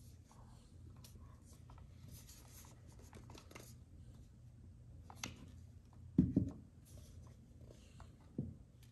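Handling noise from a plastic Google Wifi mesh router unit and its cable being turned over in the hand: light rubbing and scraping with small clicks, a dull knock about six seconds in and a smaller one near the end, over a faint low hum.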